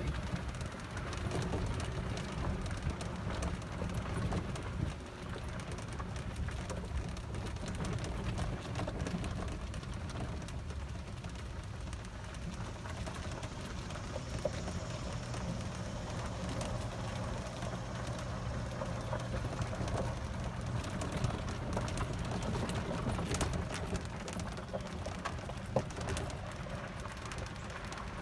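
Small open utility cart driving along gravel and dirt paths: a steady low rumble with tyre crunch and small rattles. A low hum joins for several seconds about halfway through.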